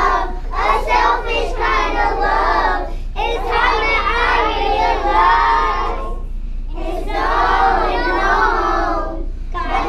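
A group of young children singing together without accompaniment, in phrases of a few seconds with short breaks between them.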